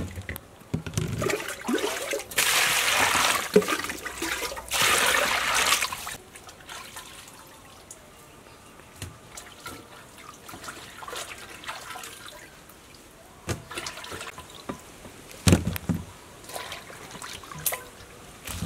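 Hands swishing lemongrass, limes, chillies and galangal in a metal pot of water: loud splashing for about four seconds, then quieter splashes and light knocks as the wet vegetables are handled and moved into a plastic colander.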